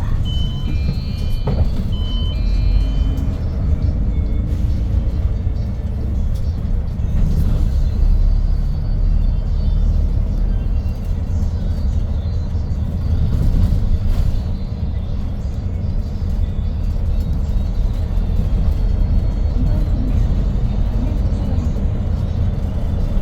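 Hyundai New Super Aerocity city bus under way: its CNG Q290 six-cylinder engine and road noise make a steady low rumble, heard from inside the cabin, with music playing over it.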